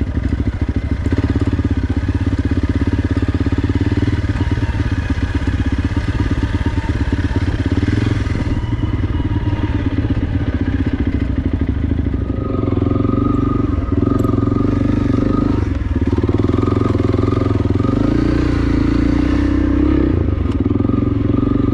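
Honda CRF300L's single-cylinder four-stroke engine running under way on a trail ride, a steady pulsing note. The note settles into a smoother, steadier hum about halfway through.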